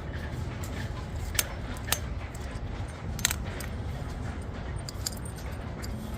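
Sharp metallic clinks of tools and fasteners as a boat's old anode is unscrewed. There are three louder clinks between about one and a half and three seconds in, and fainter ones later, over a steady low rumble.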